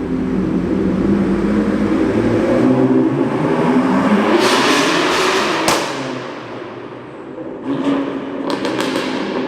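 A car engine revving, its pitch climbing and falling, with a burst of rushing noise that ends in a sharp crack about six seconds in. The sound is quieter afterwards, with a few clicks near the end.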